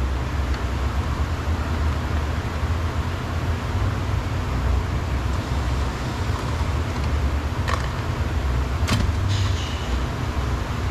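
Steady low rumble throughout, with two sharp clicks near the end, the second followed by a brief metallic ring, as a screwdriver works at a door trim panel screw.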